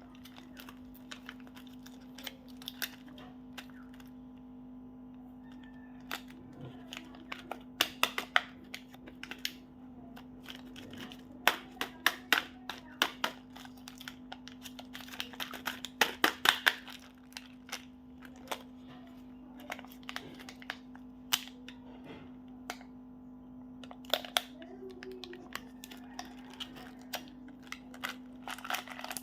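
Crinkling and crackling of candy and chocolate packaging being handled and opened, in irregular clusters of sharp clicks, over a steady low hum.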